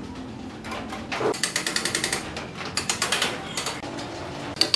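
Steel rebar being worked with a hand tool: a knock about a second in, then two short bursts of rapid metallic clicking.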